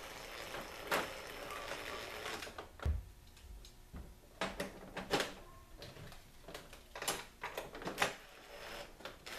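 Cordless drill driving a screw through a TV-mount bracket into the back of a flat-screen TV, running steadily for about two and a half seconds. Then scattered clicks and knocks, with a dull thump about three seconds in, as the metal bracket and screws are handled.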